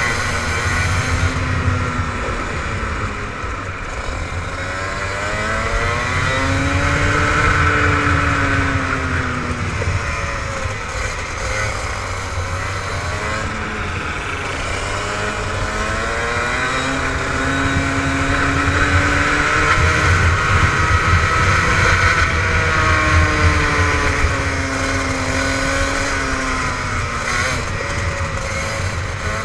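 Rotax two-stroke go-kart engine at racing speed, heard from on board the kart; its pitch climbs and falls three times as it accelerates along the straights and drops back for the corners.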